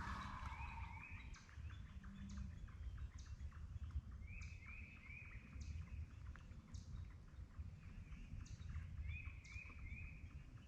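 Woodland songbirds calling: a short phrase of two or three quick falling chirps comes three times, with fainter high calls repeating regularly between. A steady low rumble runs under them.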